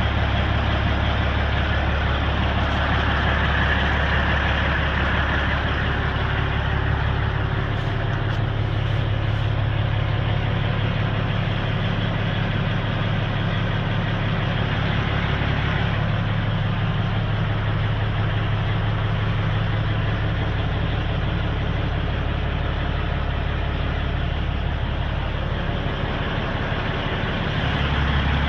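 Peterbilt truck's diesel engine idling steadily, heard from inside the cab.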